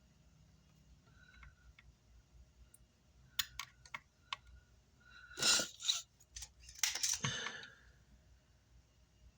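Small hand tools clicking and scraping on a circuit board while a resistor is desoldered: a few sharp clicks about three and a half seconds in, then two short scraping bursts.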